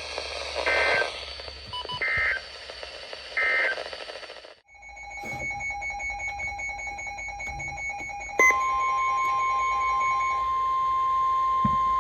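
Emergency Alert System tones from NOAA Weather Radio: three short warbling data bursts of the end-of-message code close out the previous alert. A quieter pulsing beep follows, then the steady 1050 Hz weather radio warning alarm tone starts about eight seconds in, signalling that a warning is coming.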